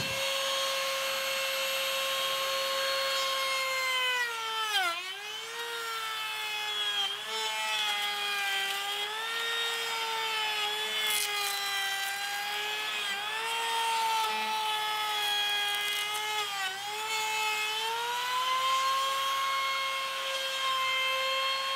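Trim router running at full speed as it cuts a full-depth rabbet around the inside of a wooden cabinet door frame; its steady high whine sags in pitch several times as the bit loads up in the wood, most deeply about five seconds in.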